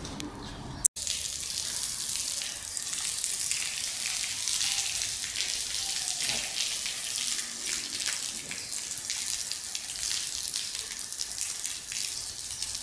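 Garden hose jet spraying and splashing steadily onto stone paving, a continuous high hiss. A short sharp click about a second in, then the spray sound resumes.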